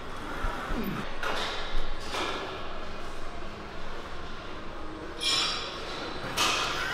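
Weight-room sounds: light metallic clinks and knocks from a Smith machine's bar and plates, with a few short, sharp noisy bursts.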